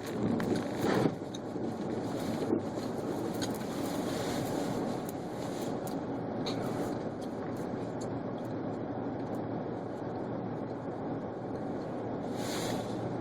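Volkswagen Passat driving slowly through deep snow, heard from inside the cabin: a steady rumble of engine and tyres working through the snow, with a brief hiss near the end.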